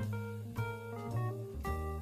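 Instrumental background music: a light jazzy tune with plucked notes over a bass line.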